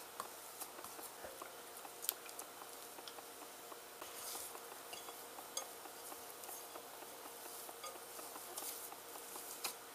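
Faint scattered clinks and soft scrapes of a utensil against a bowl as melted chocolate is worked into cookie dough.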